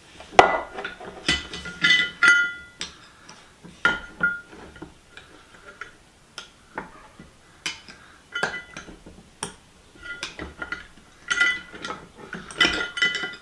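Small steel parts clinking and scraping as a hand tool pries at a stubborn C-ring (retaining ring) on a vise's screw. There are irregular clicks with a short metallic ring, busiest near the start and again near the end.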